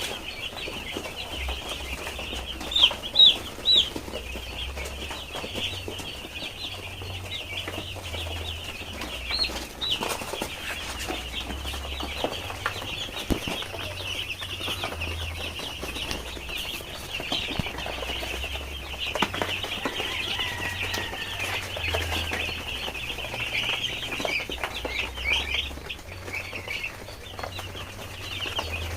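A flock of five-day-old broiler chicks peeping continuously in a dense high chorus, with a few louder peeps about three seconds in.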